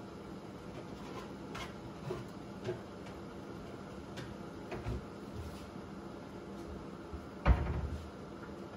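Chicken livers simmering in soy sauce and vinegar under a glass pan lid: a steady low hiss with scattered small pops and ticks. Near the end there is a single loud knock.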